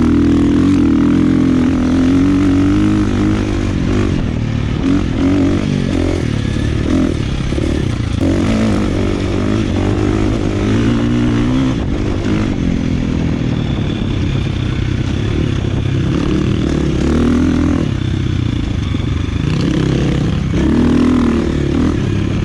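KTM four-stroke single-cylinder dirt bike engine pulling while being ridden, its revs repeatedly rising and falling.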